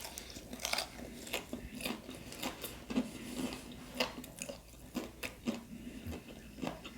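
Close-miked chewing and biting on fried shrimp: irregular crisp crunches and wet mouth clicks, several a second.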